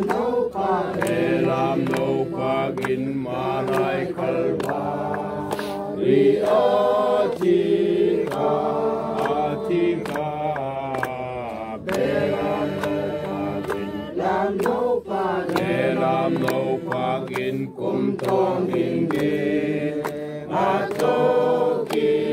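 A crowd singing together without instruments, in long held notes that move from one pitch to the next.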